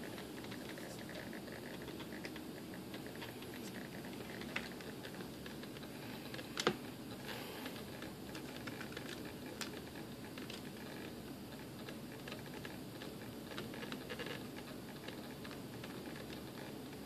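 Small screwdriver driving a tiny screw into an aileron control horn on a fibreglass wing: faint, irregular clicks and scrapes, with one sharper click about six and a half seconds in.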